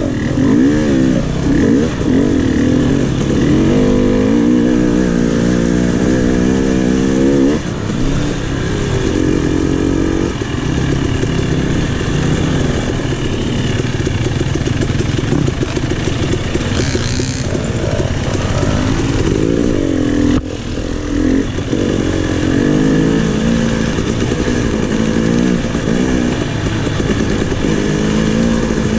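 KTM 300 XC single-cylinder two-stroke dirt bike engine running under load on trail, its pitch climbing and falling over and over as the throttle is worked, with brief drops as the throttle closes.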